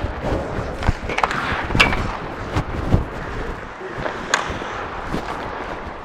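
Ice hockey play heard from the goal: skate blades scraping and carving the ice, broken by several sharp clacks of sticks and puck.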